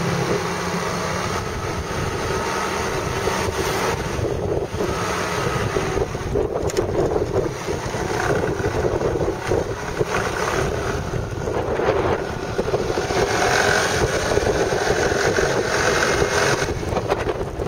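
Wind buffeting the microphone on a moving motor scooter, with the scooter's engine running steadily underneath.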